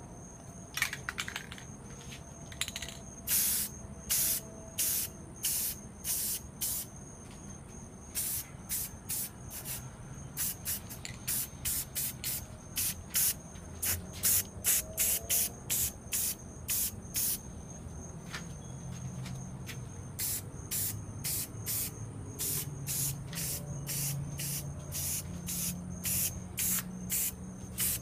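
Aerosol spray paint can hissing in dozens of short, separate bursts, roughly one or two a second.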